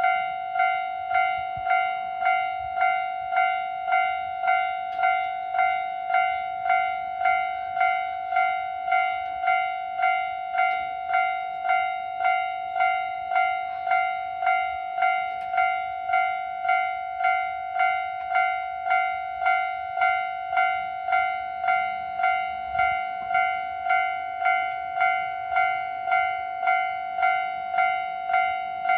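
Japanese railway level-crossing warning alarm switching on and ringing its steady 'kan-kan' tone in an even, slightly slow rhythm of just under two strikes a second.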